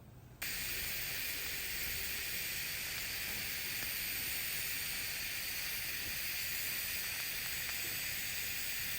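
TIG (GTAW) welding arc on carbon steel pipe, hissing steadily while the first cap bead is laid. The arc strikes suddenly about half a second in and holds at an even level.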